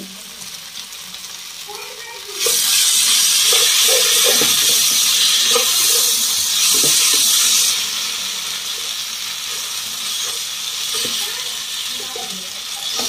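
Cornflour slurry poured into a hot pan of fried vegetables sizzles loudly, starting about two seconds in, with a ladle stirring and scraping. After about five seconds the sizzle settles into a steadier, quieter hiss.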